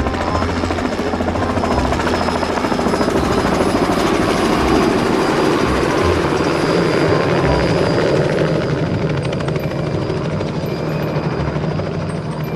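Helicopter sound effect: a steady rotor chop with engine noise, loud and continuous, easing slightly near the end.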